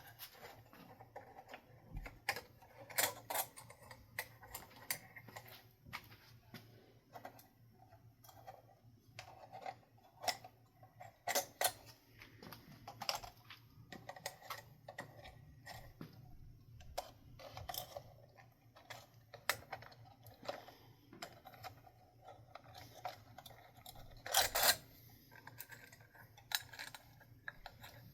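Scattered light clicks and taps of ceiling fan parts and hardware being handled, with a few sharper knocks about 3, 11 and 24 seconds in.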